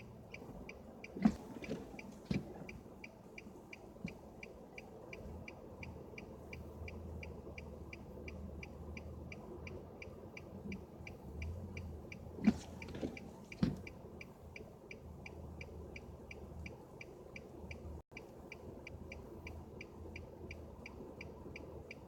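Car's indicator flasher ticking steadily, about two to three clicks a second. A few sharp knocks stand out over it, about a second in and again around the middle, and a faint low hum comes and goes.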